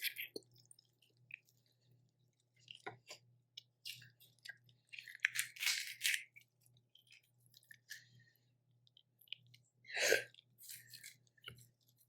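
Close-miked eating of boiled crawfish: irregular chewing and crunching with small clicks, the loudest burst about ten seconds in.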